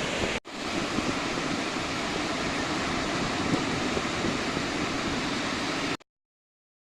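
Steady rush of ocean surf with wind on the microphone, broken by a brief cut just under half a second in. It stops dead about six seconds in.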